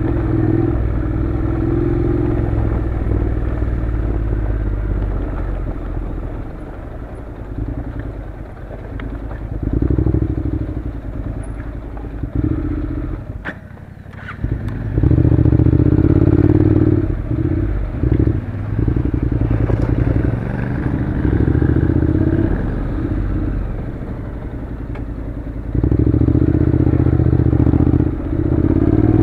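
Honda NC700's 670 cc parallel-twin engine running as the motorcycle rides a gravel track, rising and falling with the throttle. It drops almost to idle about halfway through, then picks up again. Gravel crunches under the tyres.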